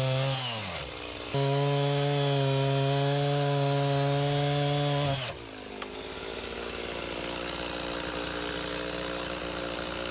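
Chainsaw at full throttle cutting through the cabin's log wall. The revs drop about half a second in, the saw is back at full throttle from just over a second, and the revs fall away again after about five seconds into a quieter, steadier running, with one sharp click shortly after.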